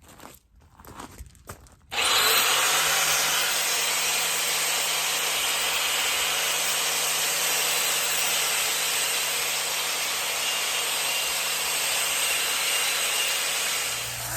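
An electric power tool starts about two seconds in and runs steadily, a low motor hum under a loud, even abrasive rasp, as of a tool working on metal.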